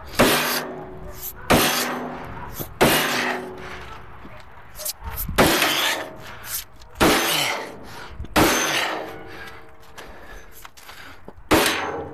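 Hammer striking a bent steel trailer fender, about seven heavy blows spaced a second or more apart, each ringing briefly, with a few lighter knocks between: the fender is being beaten back out so it stops rubbing the tire.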